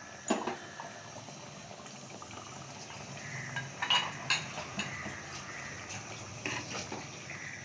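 Chicken curry boiling in an aluminium pressure-cooker pot, with a steady low bubbling. It is stirred with a steel slotted spoon that clinks against the pot a few times, loudest about four seconds in.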